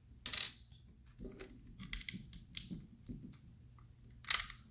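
Plastic LEGO bricks clicking and clacking against each other as a model is handled: two sharp clacks, one just after the start and one near the end, with lighter clicks between.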